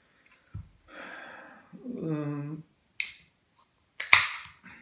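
Beer can being opened: the pull tab cracks with a sharp click and a short hiss of escaping gas just after four seconds, after a shorter hiss about a second earlier. A man's brief hum comes midway.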